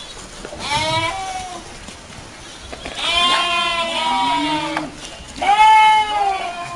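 An animal calling three times in long, pitched, wavering cries; the last call is the loudest.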